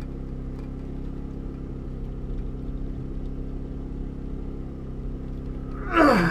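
Steady engine drone running at an even pitch. Near the end a loud sound slides sharply down in pitch.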